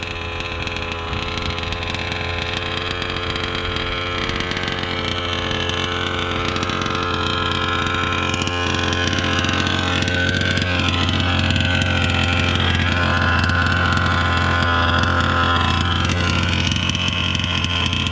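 Losi 5T's two-stroke gas engine running on steadily and fast after the RC truck ran away by itself; the owner thinks the truck's receiver battery could have gone dead, leaving it without control.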